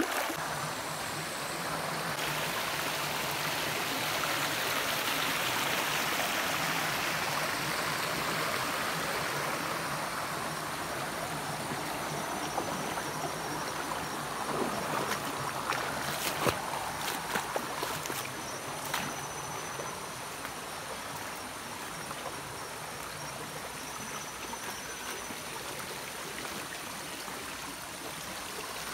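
Shallow forest stream running over rocks: a steady rush of water, a little fuller in the first half, with a few sharp knocks past the middle.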